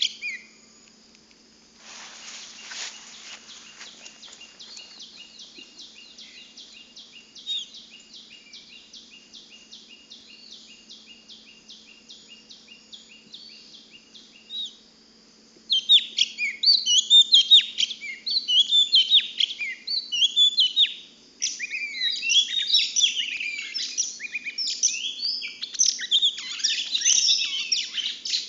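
Female murai cacing singing: a faint run of rapid, evenly repeated high notes for the first half, then loud, varied chirping phrases from about halfway on.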